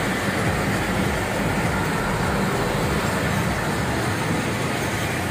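Passenger train coaches alongside the platform, a steady rumble with no distinct wheel clacks.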